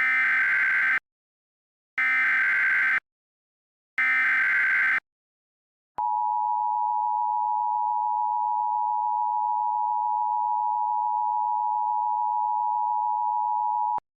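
Emergency Alert System alert opening: three one-second bursts of SAME header data tones, a second apart, then the EAS two-tone attention signal held steady for about eight seconds before cutting off abruptly.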